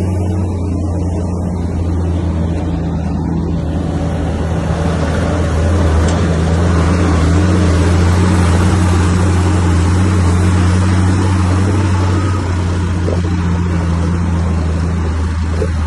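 Bulldozer's diesel engine running steadily with a deep hum, working harder and louder through the middle as it pushes earth.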